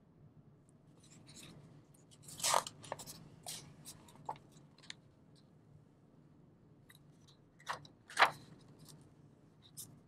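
Pages of a hardcover picture book being turned and handled: a few short paper rustles and taps, the loudest about two and a half seconds in and another just after eight seconds, over a faint low hum.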